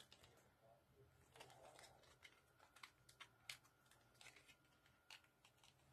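Near silence with a few faint clicks and a soft rustle about a second and a half in: a small cardboard lipstick box being handled and opened.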